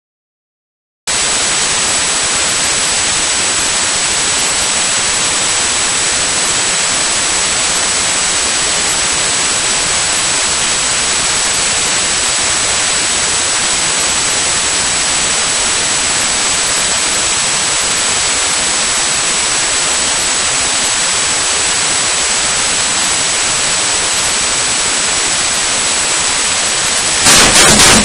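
Steady loud static hiss with a thin high whine running through it. Near the end it is broken by several louder bursts of handling noise.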